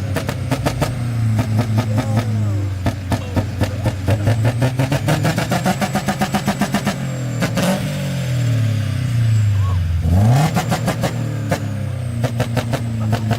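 Car engine revving up and down repeatedly while the exhaust crackles with fast, evenly spaced pops from a misfire (pops-and-bangs) system. About ten seconds in, the revs sweep quickly upward.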